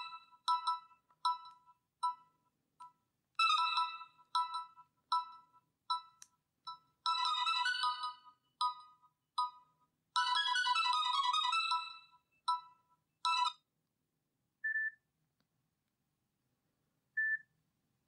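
Nokia 6680 ringtone preview through the phone's loudspeaker: a bright electronic melody of short staccato notes for about thirteen seconds, with two busier runs in the middle. Near the end come two separate short high beeps as the tone list moves on to the beep tones.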